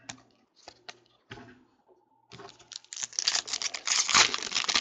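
A foil trading-card pack crinkling and being torn open by hand, starting about two seconds in after a few faint clicks of cards being handled, and getting louder toward the end.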